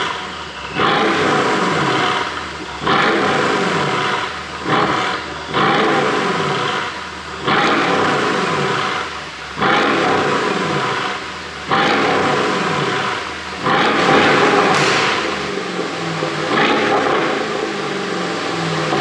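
Mercedes CLS63 AMG (W218) twin-turbo V8 revved in repeated blips, one about every two seconds, each falling away as the revs drop. The car is tuned to pop and crackle through the exhaust as the revs come off.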